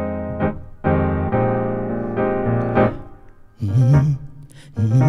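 Piano playing slow, sustained chords, several struck in turn, fading to quiet about three seconds in. Just after, a voice comes in singing over it.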